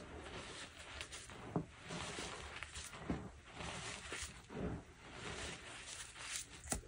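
Dyed gym chalk, re-formed into blocks, being crumbled and crushed: irregular soft crunches and powdery hiss, with a sharp crack near the end.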